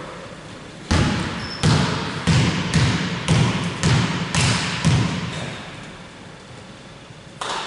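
Basketball bounced on a hardwood gym floor about eight times in four seconds, a player's dribbles at the free-throw line before the shot, each bounce echoing in the hall. After a pause, one more knock comes near the end.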